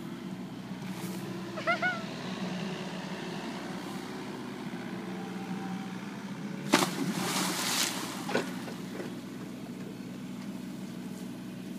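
The diesel engine of a John Deere 50D mini excavator running steadily. A brief rising-and-falling squeal comes about two seconds in. About seven seconds in there is a sharp splash, followed by about a second of rushing water noise.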